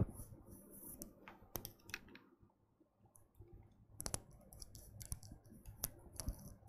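Faint, irregular clicks and light taps, about nine in all and unevenly spaced, from small objects being handled at a desk.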